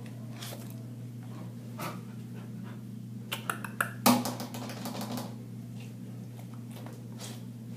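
Chow Chow mix puppy's claws clicking and scrabbling on a hard tile floor as it moves about, with a quick run of clicks and then a louder knock about four seconds in, over a steady low hum.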